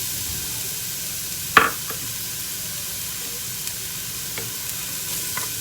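Chopped cabbage, onion and green capsicum sizzling in hot oil in a pan, a steady hiss as they are stir-fried, with one sharp utensil knock on the pan about a second and a half in and a few lighter ticks later.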